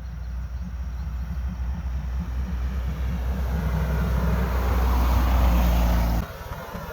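A road vehicle approaching, its engine hum and tyre noise growing steadily louder, then cutting off suddenly about six seconds in.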